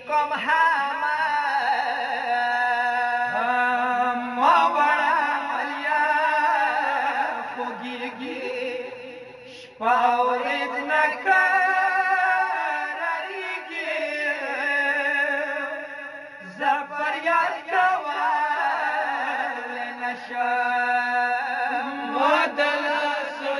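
Male voices singing a Pashto noha, a mournful Shia lament, in long wavering held notes. There is a short break about ten seconds in.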